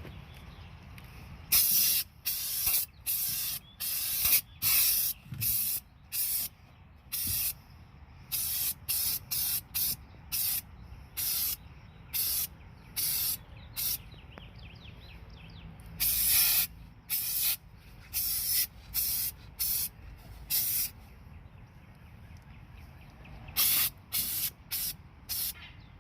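Aerosol can of sound-deadening undercoating spraying into a van's wheel well in dozens of short hissing bursts, a few of them about a second long, with brief pauses between.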